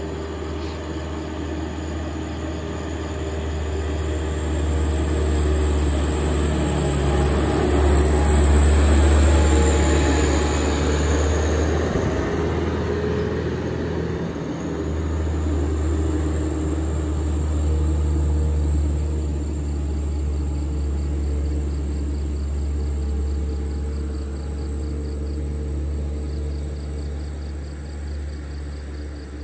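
A heavy truck loaded with sugarcane approaching and passing, engine and tyre noise building to its loudest about a third of the way through. The low engine sound carries on, fading slowly, as it drives away up the road.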